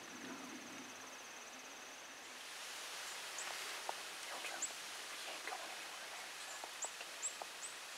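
Quiet field ambience. An insect trills steadily for about the first two seconds, then stops abruptly. After that there is a slightly louder hiss with a few short, high chirps and scattered faint ticks and rustles.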